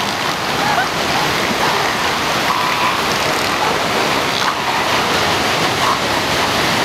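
Steady wash of ocean surf breaking on the beach, with a few faint short calls over it.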